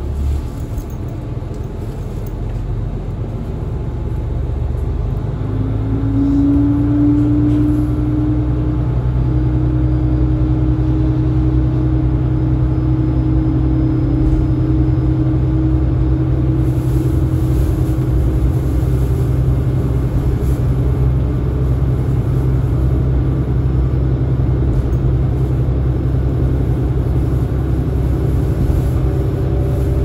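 KiHa 40 diesel railcar's engine heard from inside the car as the train pulls away. The engine note rises and grows louder about five seconds in, then holds a steady drone while the car gathers speed.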